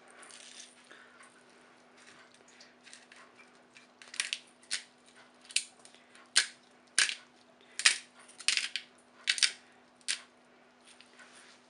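Hand pepper mill grinding black peppercorns: quiet scratchy twists at first, then from about four seconds in a run of about ten short crackling grinds, roughly one and a half a second.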